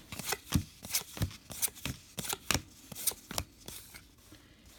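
Trading cards being flipped through and set down one at a time: a run of light, irregular flicks and slaps that fades away in the last second.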